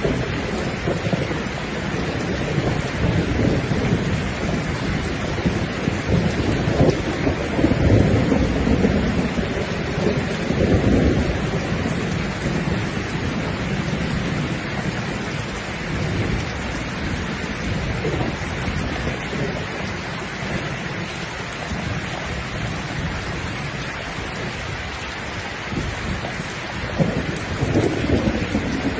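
Steady heavy rain, with low rumbles swelling up a few times, loudest about eight seconds in.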